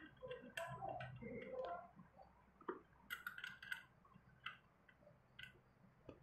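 Faint metallic clicking and tapping of scooter CVT clutch parts being fitted together by hand: a quick run of clicks about three seconds in, then a few single ticks.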